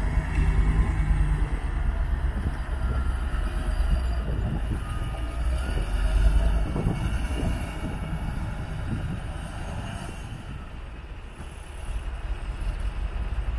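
Loaded dump truck's diesel engine rumbling as it drives off over rough dirt, its steel body rattling and clanking. It fades as the truck pulls away, then the rumble picks up again near the end.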